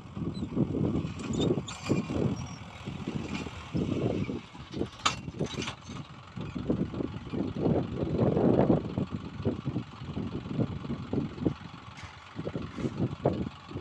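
Mahindra Yuvo diesel tractor engine running under load as it pulls a plough through the soil, heard close up; the low rumble swells and fades unevenly.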